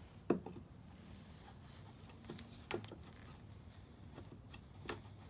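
A few short, light clicks and knocks from hands working the fuel filter and line at the blower's fuel tank opening: the sharpest about a third of a second in, more around the middle and near the end.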